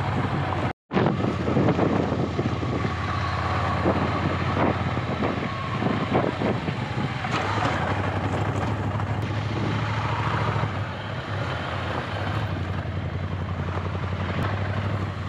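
Ducati Scrambler's air-cooled L-twin engine running steadily while riding a rough dirt track, with wind and road noise over it. The sound drops out briefly about a second in.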